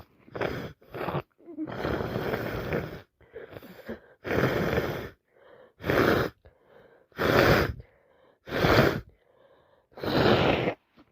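A woman with a heavy head cold gasping and sneezing again and again: quieter breaths first, then five loud sneezes about every one to one and a half seconds.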